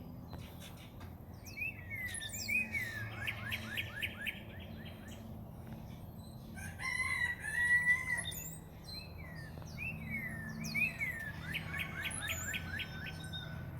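Birds calling, with two repeated song phrases of short sliding whistles running into a fast clicking rattle, and a held whistle between them.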